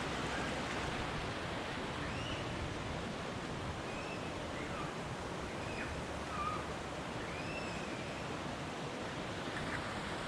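Waterfall rushing as a steady, even wash of water noise, with a few short high chirps scattered through the middle.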